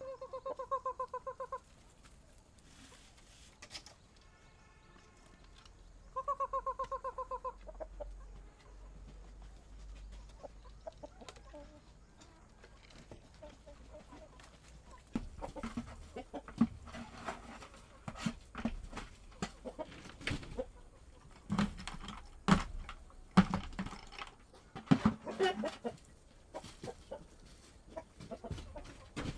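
Chickens calling: two long, pulsing calls, one near the start and one about six seconds in. From about halfway there is a run of sharp knocks and rustling while feed is handled in the coop.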